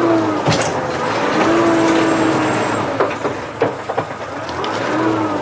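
Gas chainsaw running and revving up and down as it cuts into a dead tree, with a few sharp cracks.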